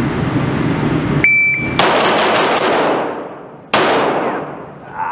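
A shot timer gives one steady high beep. About half a second later a Bul Armory 2011 pistol fires five fast shots, about a fifth of a second apart, each ringing out in the small indoor range. One more shot follows about a second after the string.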